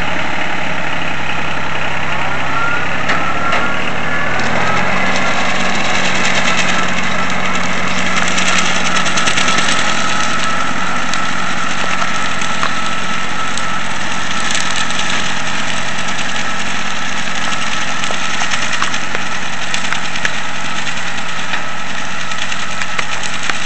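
Three-cylinder Yanmar diesel of a 1977 John Deere 950 tractor running with a bush hog rotary mower hitched behind. The engine note rises about two to five seconds in, then holds steady.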